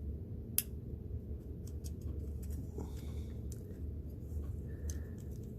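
Small sharp clicks and taps of the plastic and metal parts of a diecast toy car being handled and pried apart, with one sharper click about half a second in, over a steady low hum.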